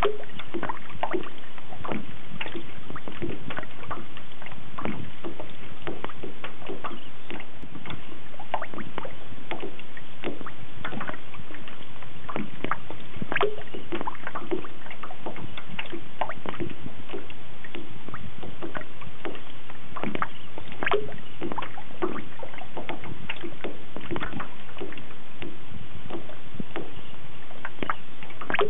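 Water lapping and slapping against a metal boat hull, heard from on deck as a steady stream of small irregular knocks and slaps, some with a brief hollow ring.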